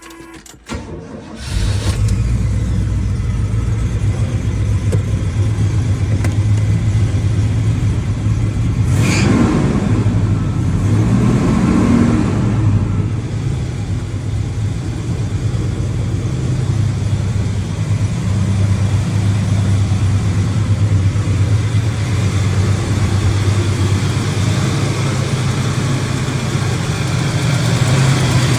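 Car engine started about a second and a half in, then idling steadily, with a short rev around nine to thirteen seconds in. It runs with its exhaust leak just repaired.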